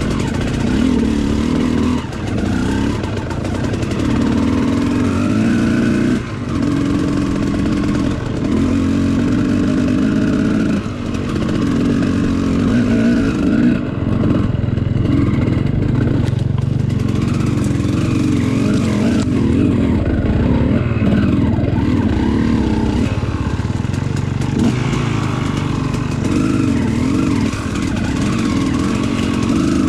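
Enduro motorcycle engine under way on a rough trail, the throttle opening and closing so that the engine note rises and falls every second or two.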